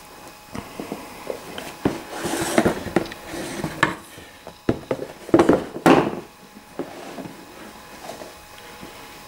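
A thick cardboard game board being handled and flipped over a game box: rustling and scraping with a few sharp knocks, loudest about five to six seconds in.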